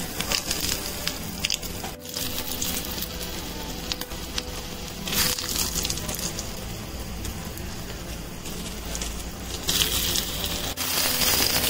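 Mustard seeds and urad dal sizzling and crackling in hot oil, the seeds popping continuously as the tempering fries. The sizzle flares louder about five seconds in, as dry red chillies go into the oil, and again near the end.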